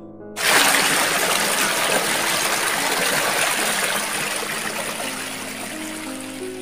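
Fast-flowing river water rushing over rocks, starting suddenly about half a second in and slowly getting quieter toward the end. Soft keyboard music continues faintly underneath.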